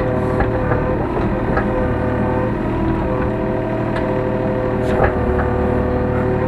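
Hyundai R35Z-9A mini excavator's diesel engine and hydraulics running steadily, heard from inside the cab, with a few short clicks and knocks as the machine works.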